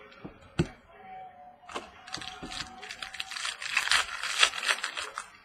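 Trading cards and foil pack wrappers being handled: scattered clicks, then dense crinkling and rustling, heaviest in the second half. A faint steady tone runs underneath for about two seconds.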